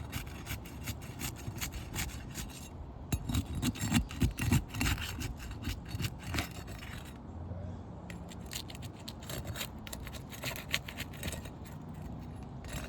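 Irregular scraping, rubbing and crackling of asphalt roof shingles being worked loose to test whether they can be lifted without tearing. The strokes ease off briefly about seven seconds in.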